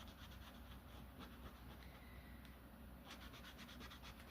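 Faint scratching strokes of colouring on a paper page, coming in short runs, with a denser run near the end.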